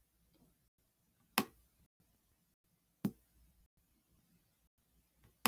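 Three single sharp clicks of a computer mouse, the first two about a second and a half apart and the last near the end, with faint room tone between.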